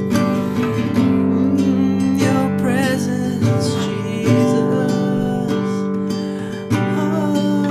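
Nylon-string classical guitar strummed in chords, with a man singing along.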